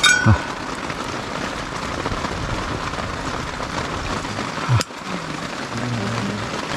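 Steady rain falling on a mountain camp shelter and tent, an even hiss, with a single sharp click about two-thirds of the way through.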